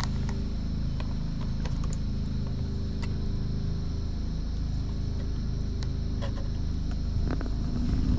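A steady low mechanical drone, like a motor running, with a few light clicks and taps scattered through it.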